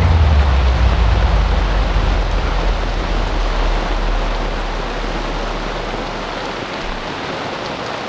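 Heavy rain falling steadily. A deep rumble starts with it, loudest in the first second, then fades away over several seconds.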